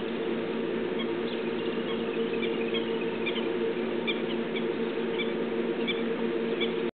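Short, high squeaky animal chirps, scattered and more frequent from about a second in, over a steady low hum.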